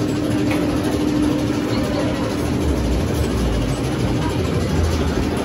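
Steady mechanical hum and low rumble of the Oblivion dive coaster's machinery as its train creeps to the edge of the vertical drop and is held there. The rumble swells briefly in the middle.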